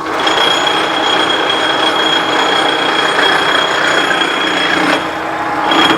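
GMC GT-26120 heavy-duty gap bed engine lathe switched on and running, its gearing giving a steady high whine over a broad mechanical rush. The whine fades briefly near the end.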